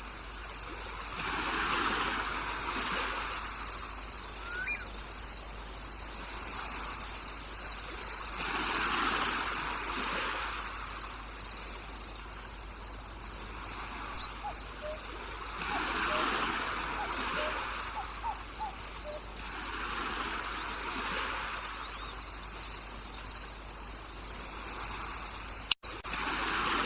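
Outdoor insect chorus: a steady high-pitched drone with regular cricket chirps. Underneath, a rushing noise swells and fades every six or seven seconds. A sharp click and a brief dropout come near the end.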